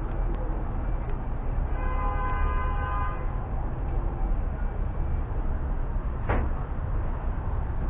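Steady low rumble of outdoor street noise, with a horn sounding once for about a second and a half, starting about two seconds in. A short sharp rush of noise comes about six seconds in.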